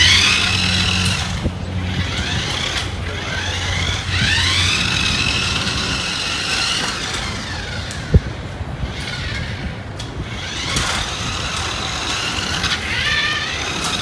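A toy remote-control racing car running, its high whine rising and falling several times as it speeds up and slows down. A low hum in the first few seconds, and one sharp knock about eight seconds in.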